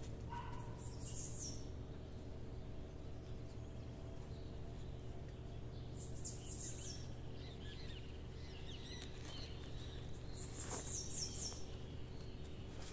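A small bird chirping in three short runs of quick, high notes, about five seconds apart, over a steady low hum, with faint rustling of soil and roots being handled.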